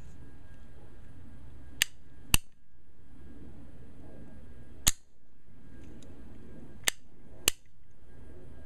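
Zinc-alloy action of a Denix non-firing replica LeMat revolver being cocked and dry-fired: five sharp metal clicks. They come as a lighter click and a louder snap about half a second apart, a single loud snap around the middle, then another lighter click and louder snap near the end.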